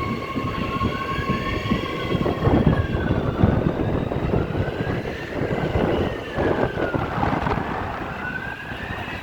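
Emergency vehicle siren wailing, its pitch rising and falling about every four seconds, over strong wind buffeting the microphone.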